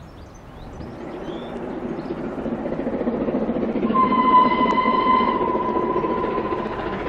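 Steam-hauled passenger train approaching, its rumble growing steadily louder. About four seconds in, the locomotive's whistle sounds one long steady note for about three seconds.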